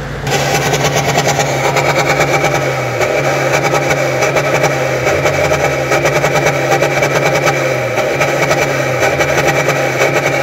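Car engine idling, heard right at its single exhaust tip: a steady, loud exhaust note with a fast, even pulse and no revving.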